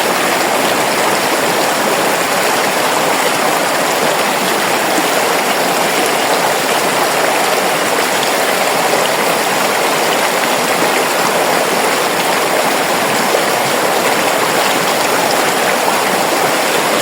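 River water flowing, a steady, even rush of water with no break or change.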